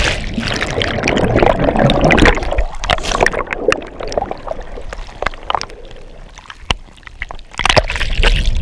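Churning water and bubbles heard from underwater just after a jumper plunges into the sea: a dense, muffled rush crackling with bubble clicks that fades over several seconds, then a louder burst of rushing water near the end.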